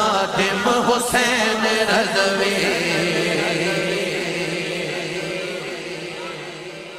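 A man's voice chanting an Urdu manqabat in a wavering, ornamented line, then holding one long note that slowly fades away over the last few seconds.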